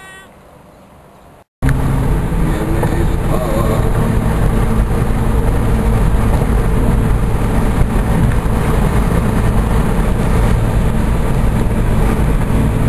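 Car driving at highway speed, heard from inside: loud, steady road and wind noise with a low rumble. It starts suddenly about one and a half seconds in.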